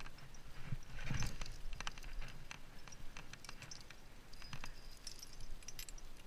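Scattered light clicks and knocks of climbing gear and hands scuffing on rough rock as a climber moves up, with a louder thump about a second in.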